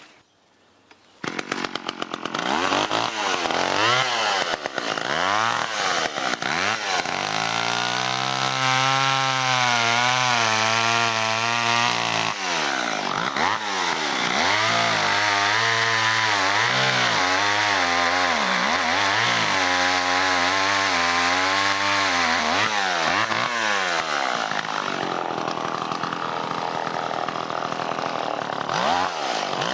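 Vintage John Deere 40V gasoline chainsaw running at high revs, its pitch dipping and rising again and again as it cuts into a tree. It starts abruptly about a second in.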